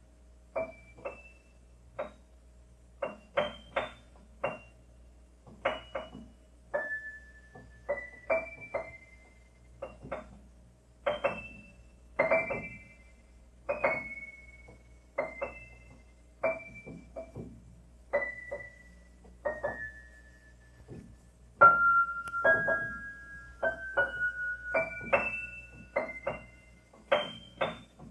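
Slow, gentle piano music: single notes and soft chords struck about once a second, each ringing and fading away.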